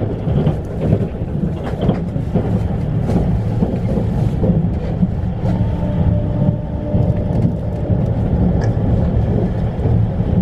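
Train running on the rails: a steady, loud rumble of wheels and running gear, with faint steady tones coming in about halfway through.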